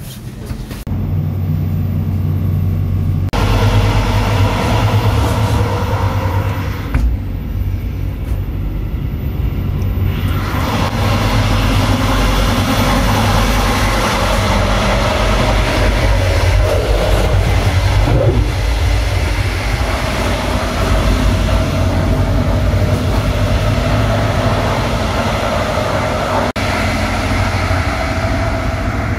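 Double-deck regional express train running along the line, heard inside the coach's door vestibule. A loud, steady low rumble of the wheels and running gear, with a rushing noise that swells a few seconds in and again about ten seconds in.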